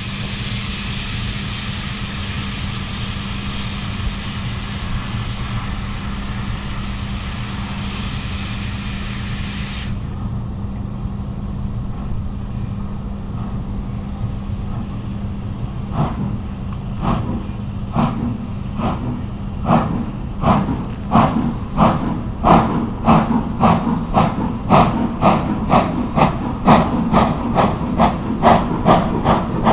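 Hunslet Austerity 0-6-0 saddle tank steam locomotive No. 68013: a steady hiss of steam that stops abruptly about ten seconds in, then, from about halfway, exhaust chuffs starting slowly and quickening to about two a second as it powers away from the station.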